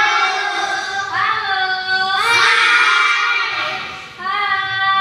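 A group of young children singing together in long, drawn-out notes. The phrases are separated by short breaks, with a clear dip about four seconds in.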